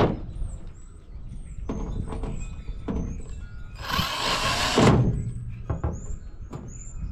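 Knocks and clatter of a microwave's metal casing and parts being worked on with hand tools during dismantling. About four seconds in there is a louder, harsh burst of noise lasting about a second.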